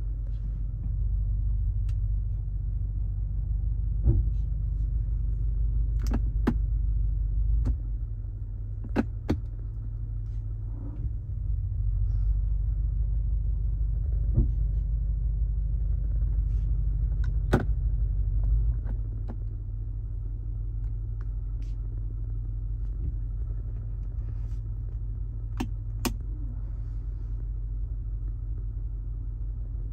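Low, steady rumble of the BMW M5 Competition's 4.4-litre twin-turbo V8 on the move. It grows louder twice for several seconds and eases back, with a few scattered sharp clicks and knocks.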